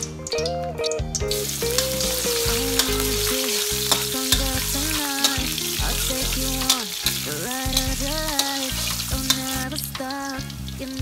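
Minced garlic and sliced red chillies sizzling in hot oil in an aluminium wok, the sizzle starting about a second in. A metal spatula clicks and scrapes against the wok as they are stirred.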